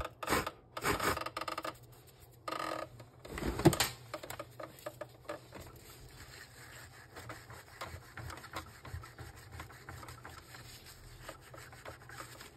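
A tissue rubbing and scratching against the clear plastic encoder disc and plastic gears of an Epson L3150 printer's paper-feed mechanism as they are wiped clean. A few louder handling knocks come in the first few seconds, the loudest about three and a half seconds in, then a steady quiet rubbing.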